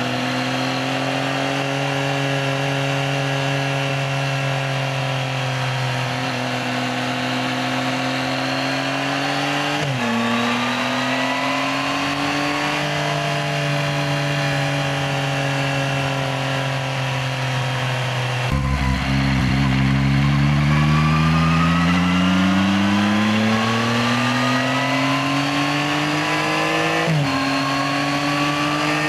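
Yamaha XSR900's 890 cc three-cylinder engine on the move, heard from the bike: a steady note that dips and climbs at a gear change about ten seconds in, then, from a little past halfway, gets louder and rises steadily under acceleration until another gear change near the end.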